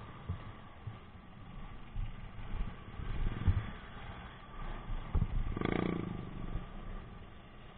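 Motorcycle riding slowly in city traffic, heard through an on-board camera microphone: a low rumble with irregular wind buffeting on the mic. A brief pitched tone sounds about six seconds in.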